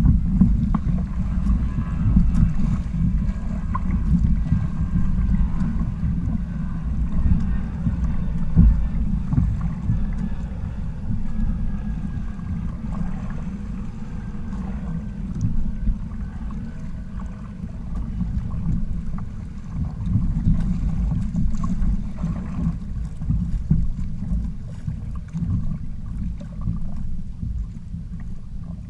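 Low, muffled rumble of wind buffeting the camera microphone, mixed with water rushing and slapping along the hulls of a sailing trimaran kayak moving through choppy sea.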